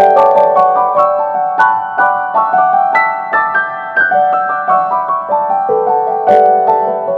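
Background music: gentle piano notes played in a flowing pattern.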